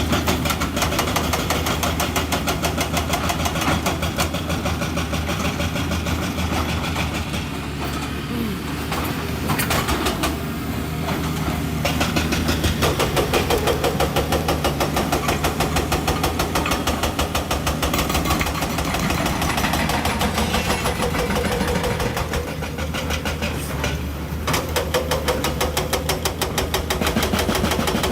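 Excavator diesel engine running with an even, rapid pulsing. It eases off twice and picks up again as the machine works.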